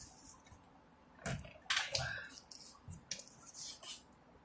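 Packaging being handled: several short, irregular rustles and crackles, the loudest about halfway through.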